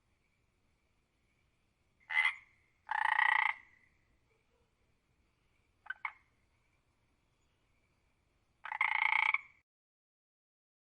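Frog croaking in separate calls: a short croak about two seconds in, a longer one just after, a quick double click around six seconds, and a longer croak near the end.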